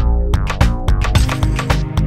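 Electronic music with a steady drum beat and deep bass.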